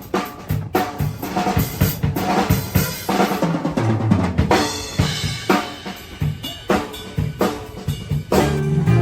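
Music with a drum kit playing busily, many rapid drum and snare hits; steady bass notes come in near the end.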